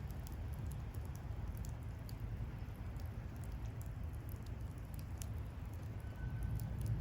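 Wood bonfire crackling: scattered small pops and snaps over a steady low rumble.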